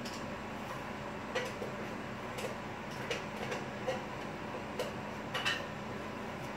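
Bread dough being kneaded by hand on a countertop: soft irregular taps and slaps, roughly one every half second to a second, over a steady background hum.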